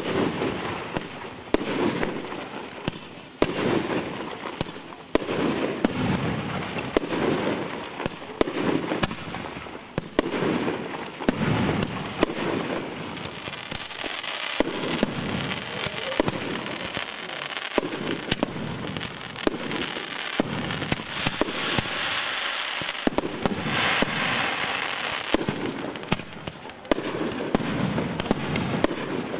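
Aerial fireworks going off one after another: sharp bangs every second or two, with a dense crackling of bursting stars through the middle stretch.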